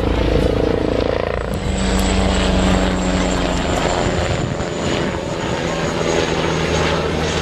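Eurocopter Tiger HAD attack helicopter flying past: a steady, loud rotor thrum over a thin high turbine whine from its twin turboshaft engines.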